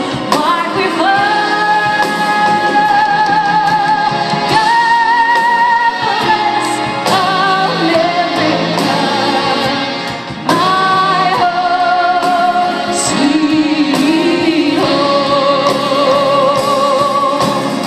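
A woman singing live into a microphone with instrumental backing, holding long, wavering notes.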